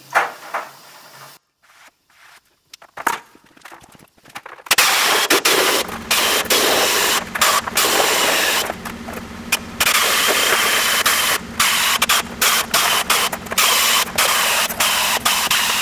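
Pneumatic air shears cutting through old steel door-skin panel, a loud hissing, buzzing run with a steady hum that keeps stopping briefly and starting again. It begins about five seconds in, after a few light knocks of handling the panel.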